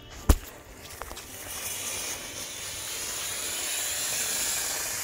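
A sharp click, then about a second in a 'Sunlight' flower-pot fountain firework catches and hisses as it sprays sparks, the hiss growing steadily louder.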